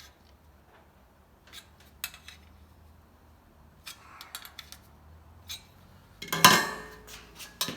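Light metal clinks and taps as a sheet-steel patch and hand tools are handled, then one loud ringing clang of metal on metal about six and a half seconds in.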